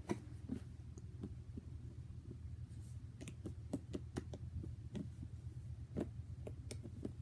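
Green fluffy slime being pressed and poked with fingertips on a tray, giving irregular small clicks and pops, several a second at times, with a louder pop about six seconds in.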